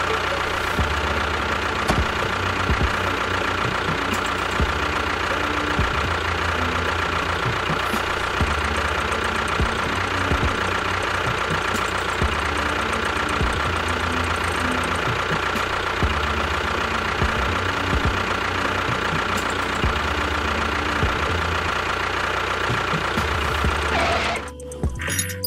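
Diesel tractor engine running at a steady knocking chug, dropping out briefly near the end.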